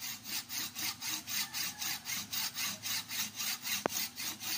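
Hand saw rasping back and forth through the hard shell of a green miracle fruit, about four quick strokes a second, with one sharp click about four seconds in.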